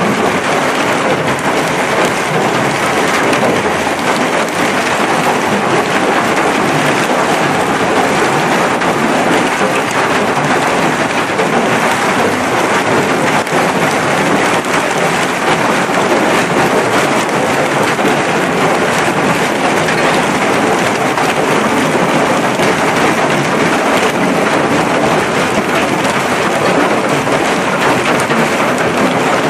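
Hailstorm: hailstones falling thickly on the railway track and ballast, a loud, steady, dense patter with no letting up.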